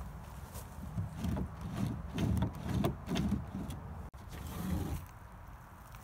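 Soft footsteps on wood-chip mulch, irregular, about two to three a second from about a second in.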